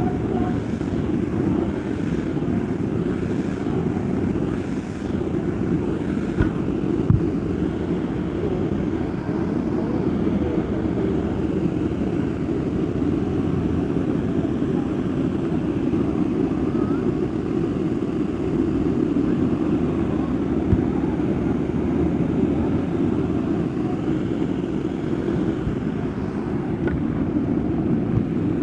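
Steady rushing roar of a waterfall, with a couple of faint knocks about six and seven seconds in.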